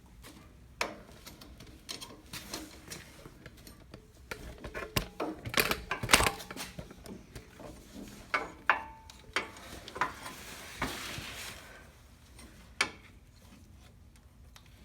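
Irregular metallic clinks and knocks of hand tools and mower parts while a new PTO drive belt is worked onto the pulleys, with a burst of clattering about six seconds in and a stretch of scraping about ten seconds in.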